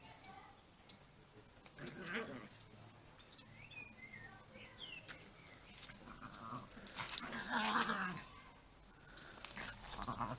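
Two Miniature Pinschers playing rough, in several bursts of dog noise. The loudest burst comes about seven to eight seconds in.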